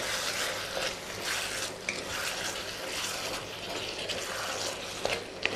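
A wok of chicken and vegetables in sweet and sour sauce sizzling and bubbling on the heat as it is stirred with a wooden spatula, with a couple of light clicks near the end.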